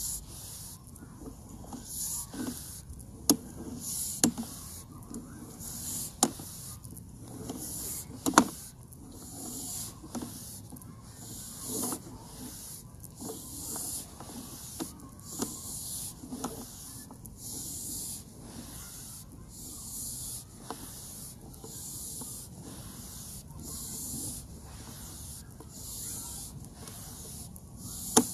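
Sewer inspection camera's push cable being fed or pulled through the pipe hand over hand: a rhythmic hissing rub repeating about every two-thirds of a second, with a few sharp clicks and knocks that are the loudest sounds.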